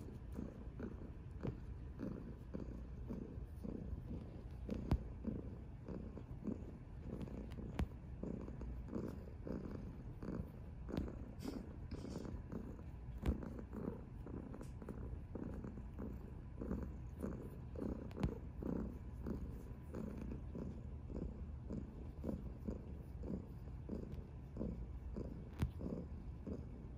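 Domestic cat purring steadily while being stroked, a rhythmic pulsing purr, with a few brief clicks now and then.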